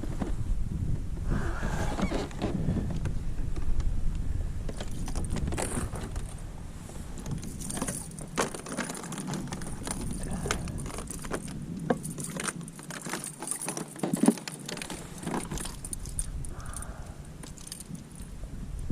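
Irregular clicks, knocks and light metallic clinks of fishing gear being handled after a catch, over a low wind rumble that thins out about halfway through.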